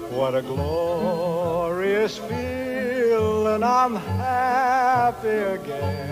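Vintage film-soundtrack music: a singer holding long notes with a wide vibrato over an orchestral accompaniment with a repeating bass line.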